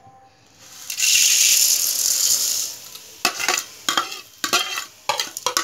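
Dry vermicelli tipped into a hot metal kadai with a little ghee, giving a loud hiss for about two seconds. Then a spatula clicks and scrapes against the pan in quick strokes as the vermicelli is stirred to roast.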